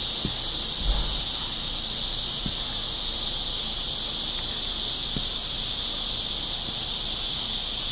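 Steady high-pitched drone of a summer insect chorus. A few faint knocks sound about a second in and again near the middle.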